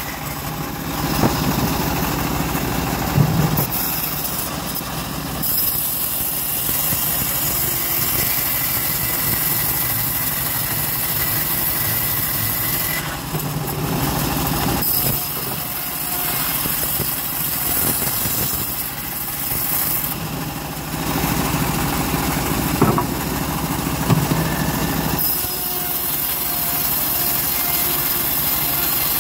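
Homemade bandsaw ripping teak planks lengthwise, its drive running steadily throughout. A high cutting hiss comes in for several long stretches as boards are fed through the blade, dropping away briefly between passes.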